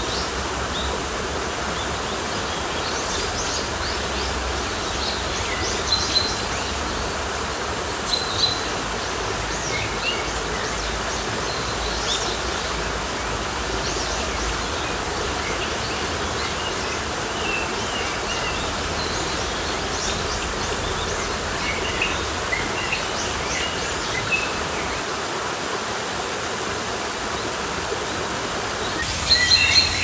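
Nature ambience: small birds chirping now and then, with a flurry of louder chirps near the end, over a steady rushing background and a continuous high insect drone.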